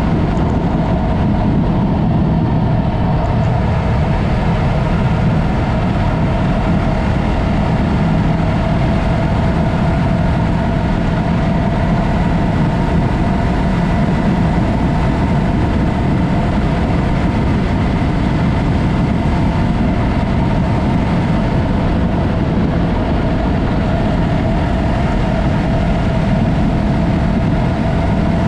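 Yamaha MT-03 motorcycle with a Mivv exhaust running at a steady, unchanging engine speed while riding, with no revving or gear changes.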